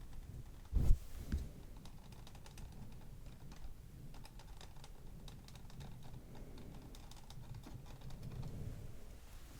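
Quick, light tapping and clicking on a hard object, many small taps in irregular flurries, with a louder low thump about a second in.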